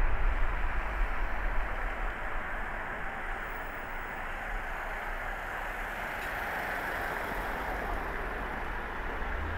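Steady road and tyre noise with a low engine rumble from a car driving on a city street, louder for the first two seconds or so, then easing a little and holding steady.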